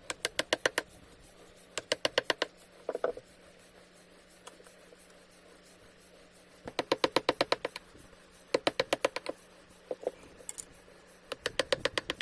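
Short runs of rapid light taps, about ten a second, each run lasting under a second, with pauses of one to two seconds between runs.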